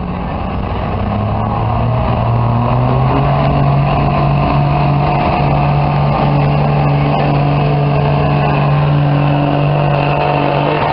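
Dodge 2500 pickup's Cummins inline-six turbodiesel under full load, pulling the sled. The engine pitch climbs over the first two or three seconds, then holds high and steady.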